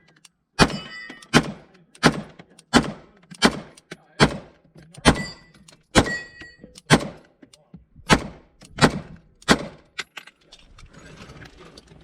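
A steady string of about a dozen gunshots, roughly one every 0.7 seconds, stopping near the end. A few are followed by a short ringing tone, typical of steel targets being hit.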